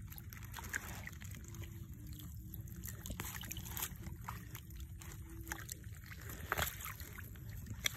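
Faint splashing and sloshing of shallow muddy water as a hand works in it, with a few scattered small clicks over a low steady rumble.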